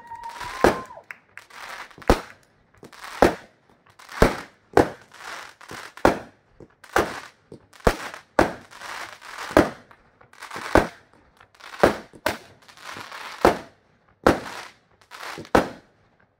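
Aerial fireworks in a steady run of launches and shell bursts, about two sharp bangs a second, each ringing out briefly, with a short rising whistle at the very start.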